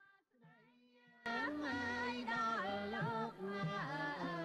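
A slow, melodic singing voice, faint at first and suddenly much louder about a second in, over a low background hum.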